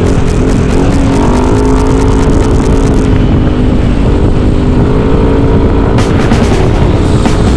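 Motorcycle engine running under way with heavy wind rumble on the microphone; the engine's pitch shifts slightly up and down as it rides.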